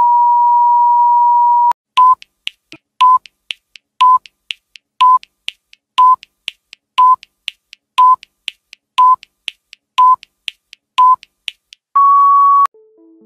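Electronic test tone and countdown-leader beeps: a loud steady tone for nearly two seconds, then ten short beeps of the same pitch once a second, with a fainter high tick halfway between each. The countdown ends in one longer, slightly higher beep that cuts off suddenly.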